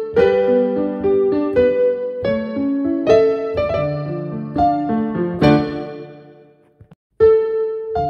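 Digital piano played slowly: chords with low bass notes and melody notes ringing over them. Near the end the sound dies away to a brief dead silence, then a new chord is struck.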